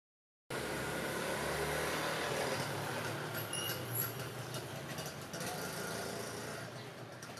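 Diesel railcar running on the track, its engine a steady low hum under wheel and rail noise, growing quieter as it slows into the station. A few brief high squeals come about halfway through.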